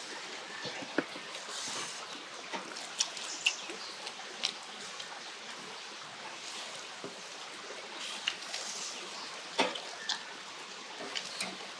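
Pork pieces sizzling on a wire grill rack, a steady hiss, with scattered sharp clicks of metal tongs and chopsticks against the rack and metal bowls.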